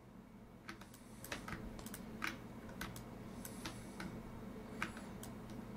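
Irregular clicking of a computer keyboard and mouse, about a dozen short sharp clicks starting about a second in, over a faint low hum.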